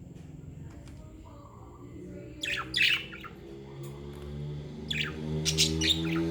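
Budgerigars squawking and chirping in short, sharp calls, a pair about two and a half seconds in and a quick run of four near the end. A low steady drone sits underneath and grows louder toward the end.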